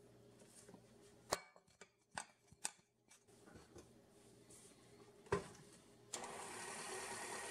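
A few sharp clicks, then about six seconds in a stand mixer's motor starts and runs steadily, its flat beater turning through the batter.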